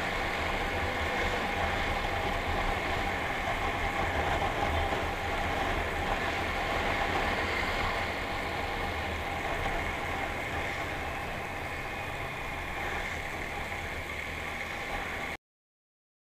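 Motorcycle engine running steadily with road and wind noise while riding along. It cuts off suddenly near the end.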